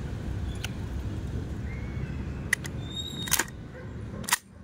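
Sharp mechanical clicks from handling the controls of a WE gas blowback M4 airsoft rifle, about half a dozen spread over a few seconds, the loudest near the end, over a low steady background rumble.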